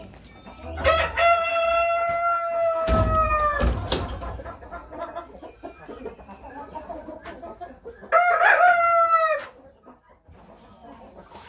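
Roosters crowing twice: a long crow about a second in that holds its pitch and falls at the end, and a shorter crow near the end, with hens clucking softly in between. A few low thumps come during the first crow.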